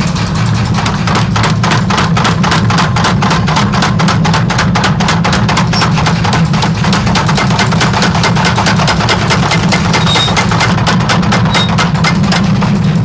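Power hammer forging hot knife steel: rapid, evenly spaced strikes about six a second over the machine's steady low hum, starting about half a second in.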